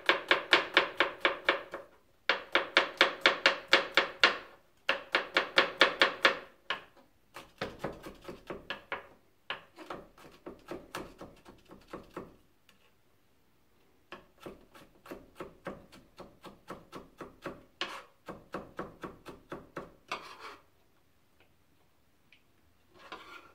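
Kitchen knife rapidly chopping garlic on a plastic cutting board, about five or six strokes a second, in runs of a few seconds broken by short pauses.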